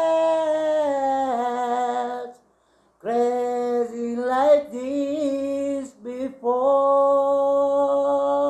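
A man singing a slow song unaccompanied, holding long sustained notes in three phrases, with a short break about two and a half seconds in.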